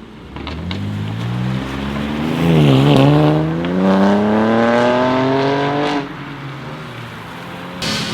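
BMW M3 G80 Competition's twin-turbo straight-six through an R44 Performance exhaust, accelerating hard. The engine note climbs, dips briefly with a gear change about two and a half seconds in, climbs again, then cuts off suddenly about six seconds in.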